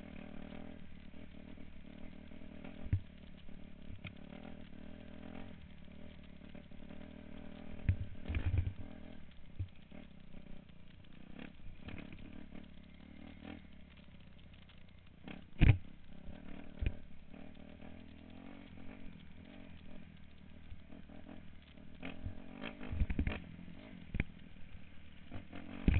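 Dirt bike engine running steadily at riding speed, heard through a camera mounted on the bike, with sharp knocks and rattles as it rides over the rocky dirt track; the loudest knock comes a little past halfway, and a cluster comes near the end.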